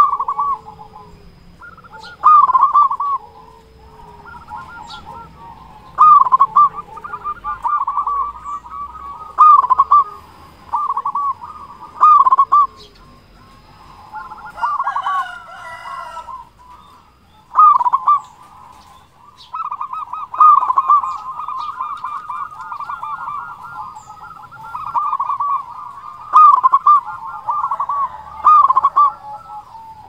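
Zebra dove (perkutut) cooing in repeated phrases of quick rolling coos, a loud phrase every couple of seconds with softer calls in between.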